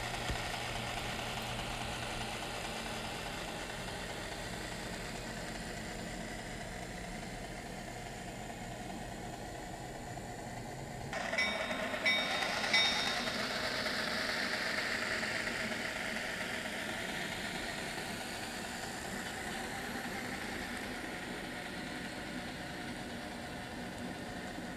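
HO scale model diesel switchers hauling a train of loaded log cars: a steady low running sound. About halfway through the sound changes abruptly and turns briefly louder, with a few short high tones, then settles back to a steady running sound.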